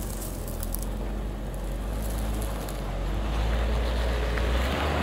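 Suzuki Jimny automatic's four-cylinder petrol engine pulling steadily in four-wheel-drive low range up a sandy, rutted climb, working harder and getting louder from about three seconds in.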